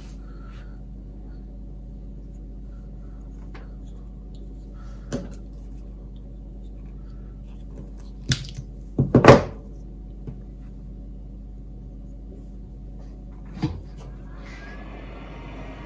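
Knocks and clicks of hand tools and coax cable being handled on a wooden workbench, loudest in a quick cluster about nine seconds in, while glue-lined heat-shrink tubing is cut and fitted over the coax's centre core. Near the end a heat gun starts with a steady blowing hiss.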